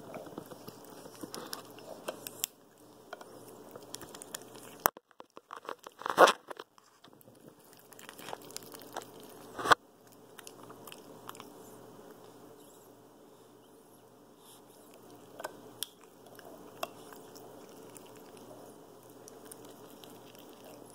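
Capuchin monkey handling and pounding a spiky rubber toy close to the microphone: crackling rubs and scattered taps, with two loud knocks about six and ten seconds in.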